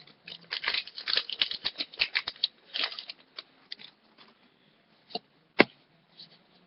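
Foil Pokémon booster pack being torn open: a dense run of crinkling and ripping for about two and a half seconds, then a few scattered crackles and one sharp snap near the end as the pack and cards are handled.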